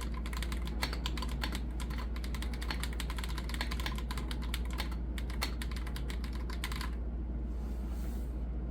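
Typing on an Akko 5075B Plus mechanical keyboard: quick runs of key presses with short pauses, stopping about seven seconds in. A steady low hum lies underneath.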